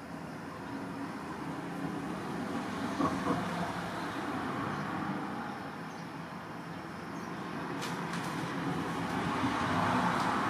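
Background road-traffic noise, a steady wash that swells near the end as a vehicle goes by.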